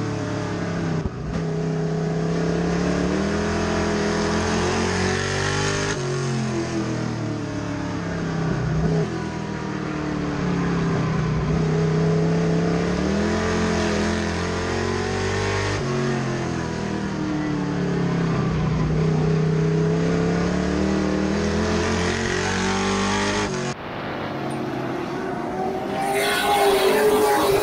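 Race truck's engine heard from inside the cockpit, rising in pitch as it accelerates and dropping off as the driver lifts, over and over every few seconds, lap after lap. Near the end the sound cuts to race cars running past a grandstand.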